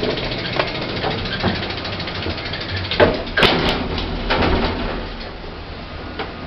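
1990s Pickering's passenger lift in operation: a steady low hum of the lift running, with a series of clicks and clunks from its mechanism, the loudest about three seconds in.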